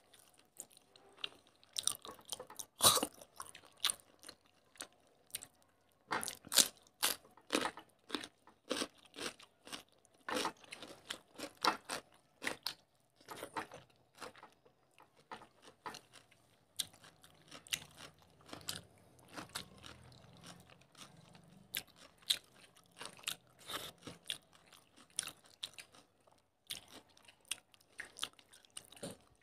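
Close-miked eating sounds from two people eating rice and fish curry by hand: chewing, crunching and wet mouth smacks. The sounds come as many irregular sharp clicks with short gaps between them.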